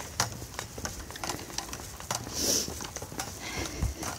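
Footsteps and small knocks of a person walking, with a brief high-pitched hiss about halfway through.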